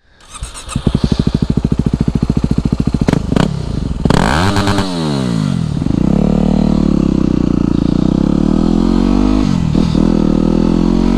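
Yamaha WR250X single-cylinder four-stroke breathing through an FMF Q4 silencer and Mega Bomb header. It idles with an even pulse, gives a couple of sharp clicks about three seconds in, then a quick blip of the revs up and back down. From about six seconds it holds a steady, louder note under way.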